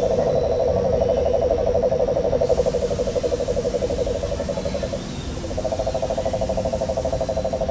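Jungle ambience soundtrack of small creatures played in the park area: a low, rapid, pulsing animal trill that holds steady, breaks off briefly about five seconds in, and starts again.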